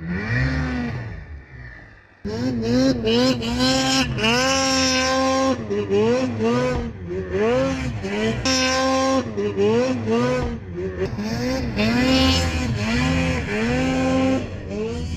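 Two-stroke mountain snowmobile engine revving hard in deep powder. The throttle is worked on and off, so the engine pitch rises and falls every second or so. The sound jumps abruptly louder about two seconds in.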